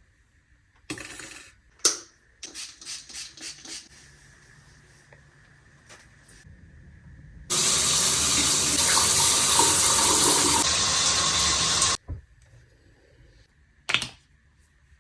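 Water running from a tap for about four seconds, starting and stopping abruptly, after a few short knocks and rustles.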